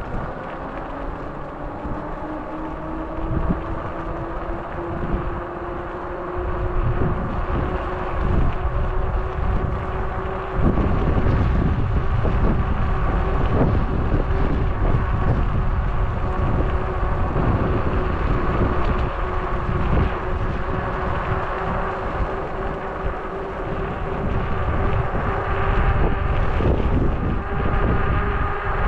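Electric bike motor whining, its pitch rising as the bike speeds up, with wind buffeting the microphone. The wind gets heavier from about ten seconds in.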